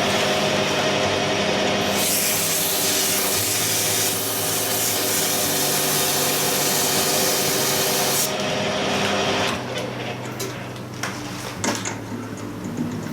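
Metal lathe turning a steel drive shaft, its steady motor hum under a light finishing cut: an even, bright cutting hiss starts about two seconds in and stops sharply about eight seconds in. The noise drops away a second or so later as the cut ends.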